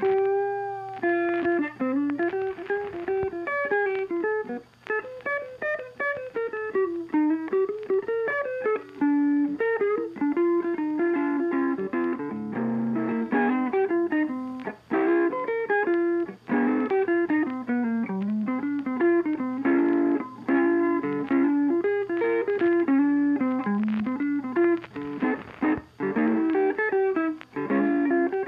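Instrumental background music: a plucked-string, guitar-like melody moving up and down over a held low bass note.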